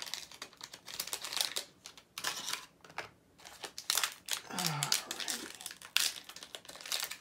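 Blind-box packaging crinkling and rustling as it is torn open and handled to get an enamel pin out, in irregular bursts with small clicks.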